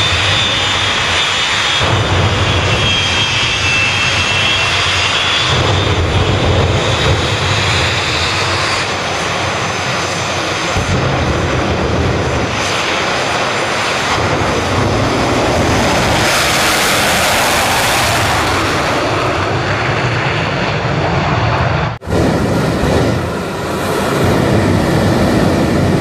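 Jet engine on a VW split-window pickup running loud: a high turbine whine over a steady roar, the whine sagging slightly in pitch over the first several seconds. The sound breaks off abruptly about 22 seconds in and picks up again with the same kind of jet roar.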